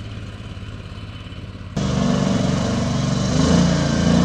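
A small engine running steadily with an even pulsing note, jumping louder about two seconds in.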